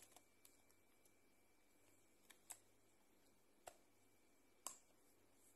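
Near silence broken by a handful of faint, short plastic clicks as a clear case is pressed and snapped onto a Samsung Galaxy A14 phone.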